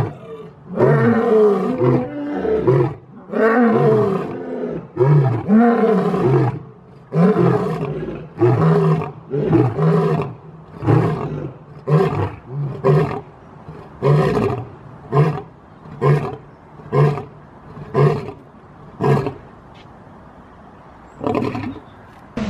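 Lion roaring bout: a few long, full roars, then a run of short grunting roars about one a second, trailing off near the end.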